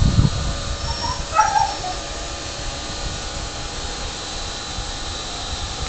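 A beagle gives a brief, high whimper about a second and a half in. A low rumble dies away at the very start, and a steady faint hiss runs underneath.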